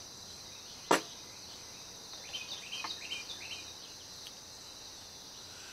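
A steady high insect chorus, with one sharp click about a second in and a few faint short chirps in the middle.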